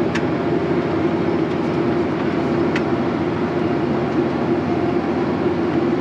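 Tractor running steadily while pulling a corn planter through the field, a constant even drone with no change in engine speed.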